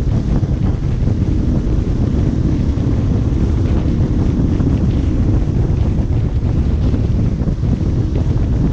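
Strong wind buffeting the microphone: a loud, steady, low rumbling roar with no distinct tones.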